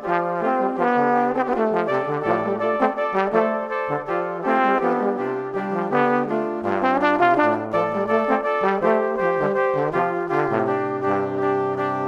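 Background instrumental music with a quick-moving melody over a stepping bass line, settling onto a long held chord near the end.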